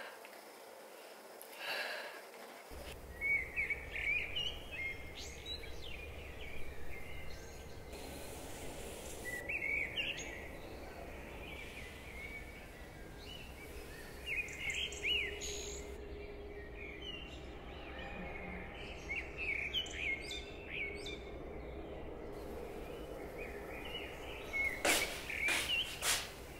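Small birds chirping and singing in short, quick phrases over a steady low hum that comes in about three seconds in, with a few short noises near the end.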